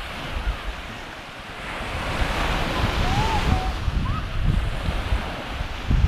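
Sea waves washing ashore, the surf swelling louder from about two seconds in, with wind rumbling on the microphone.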